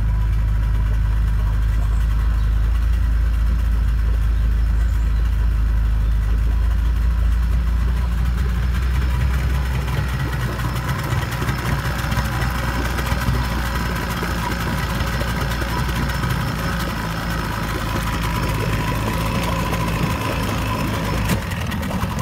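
Yamaha 55 hp two-stroke outboard motor running steadily at idle with its cowling on, its lower unit turning in a tub of churning water. The sound grows brighter and more splashy about ten seconds in.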